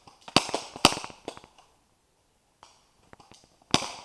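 Airsoft guns firing: two sharp shots about half a second apart near the start with a few lighter clicks after, then another shot near the end.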